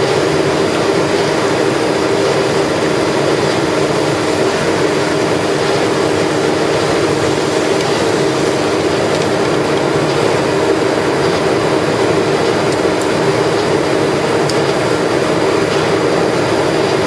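Ice-slurry pumping rig running steadily: a loud, even machine hum with several steady tones over a broad hiss, as the pump pushes very high ice-fraction (about 84% ice) slurry through the hose.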